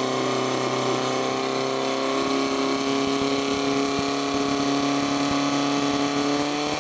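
Portable fire pump engine held at high, steady revs, pumping water through the attack hoses to the nozzles.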